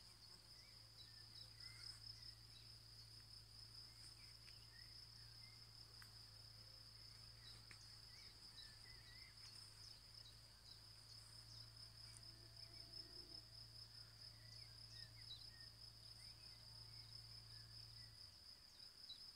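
Faint, steady chirring of crickets, with scattered short bird chirps. A faint low hum underneath stops near the end.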